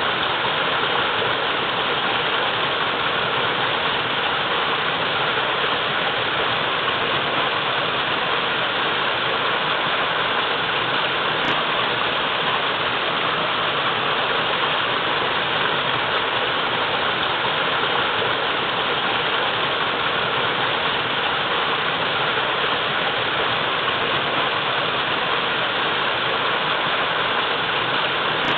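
Waterfall running steadily: a continuous, even rush of falling water.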